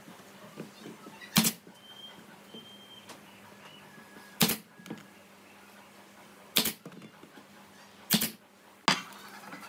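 Pneumatic nail gun firing five times, each a sharp clack, spaced irregularly one to three seconds apart, driving nails through pine seat slats into the chair frame.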